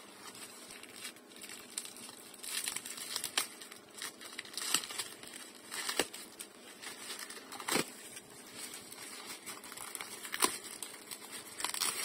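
Plastic courier pouch crinkling and tearing as it is handled and pulled open, with a few sharper snaps of the plastic.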